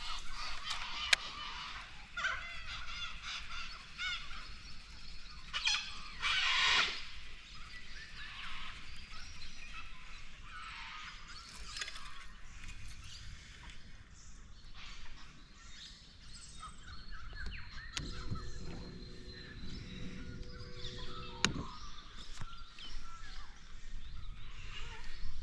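A flock of corellas and cockatoos screeching, with many harsh calls overlapping and the loudest burst about six seconds in.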